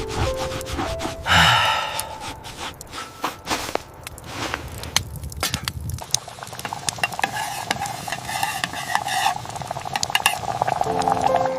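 Camp cooking sounds: utensils clinking and scraping against cookware, many sharp clicks, with stretches of sizzling near the end.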